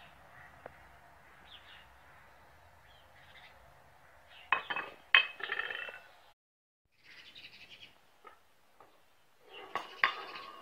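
Steel plates and bearing-housing parts clinking with a metallic ring as they are handled and set down on a tile floor: two sharp clinks about four and a half and five seconds in, and another clatter of clinks near the end.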